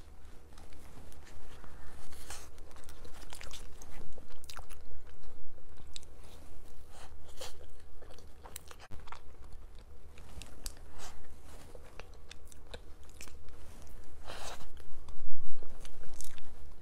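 Close-miked eating sounds: a person biting and chewing cake, with irregular mouth clicks and crunches, a few louder ones near the end, over a steady low hum.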